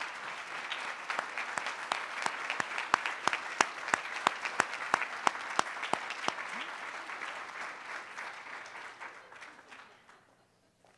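Audience applauding, with one person's claps standing out loud and close at about three a second through the middle; the applause dies away near the end.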